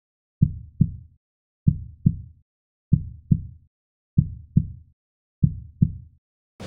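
Heartbeat sound effect: five slow lub-dub double thumps, a pair about every second and a quarter, with silence between them.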